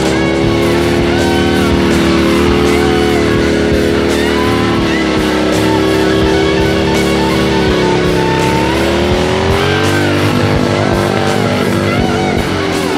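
Guitar-led background music, with long held notes that bend slowly in pitch.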